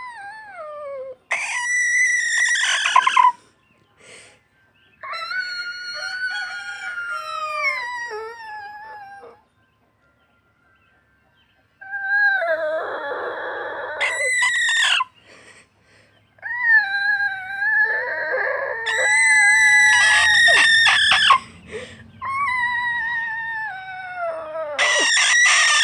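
A pet chicken making a series of drawn-out, wavering calls, about six in a row, each one to four seconds long and often sliding down in pitch at the end: weird, crow-like noises.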